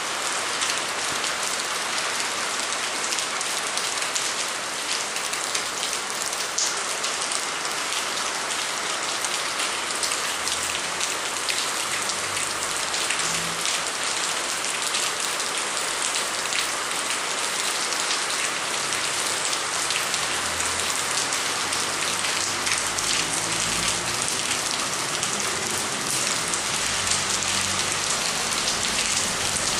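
Steady rain falling on paved ground, with many close drops ticking sharply through the even hiss.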